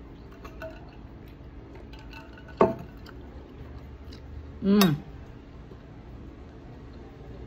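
Eating sounds: a fork or spoon ticking lightly against a plate. Two short, louder sounds stand out, about two and a half seconds in and near five seconds in, and each drops in pitch.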